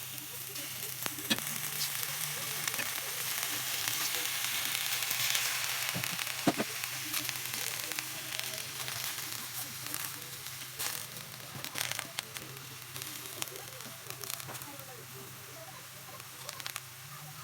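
Oregano leaves sizzling in a hot pan, heated to draw out their juice. The sizzle swells to its loudest a few seconds in and then eases off, with a few sharp clicks.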